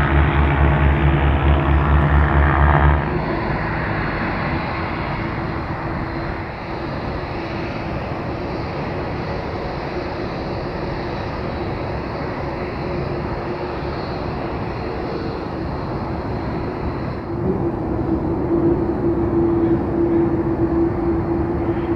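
A deep, pulsing musical tone ends about three seconds in. Then come the jet engines of a taxiing Boeing 787-8 Dreamliner: a steady rushing hum with a held low tone and a high whine. The engines grow louder near the end as the airliner draws closer.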